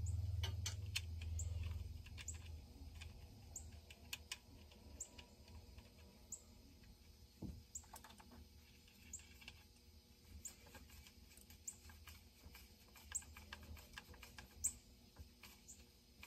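Light clicks and taps of plastic and metal parts being handled as an HD air filter is fitted on a chainsaw, with faint, short high chirps repeating every second or so.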